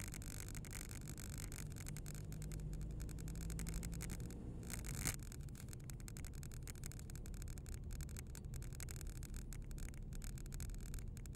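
Car driving slowly, heard from inside the cabin: a steady low rumble of engine and tyres on the lane, with one short click about five seconds in.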